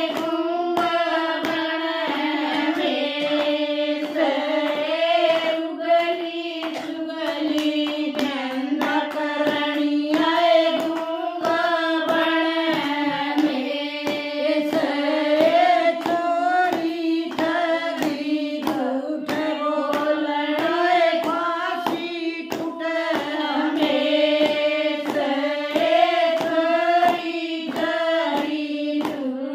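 A group of women singing a devotional bhajan to Ganesh together, keeping time with steady, rhythmic hand claps and no instruments.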